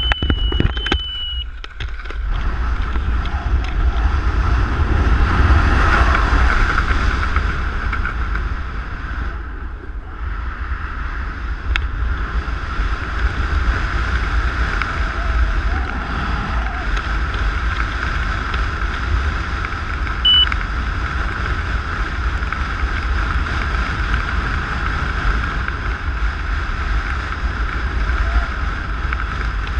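Steady, loud wind rushing over a skydiver's camera microphone during a wingsuit jump, with a deep buffeting rumble underneath. A short high beep sounds once, about twenty seconds in.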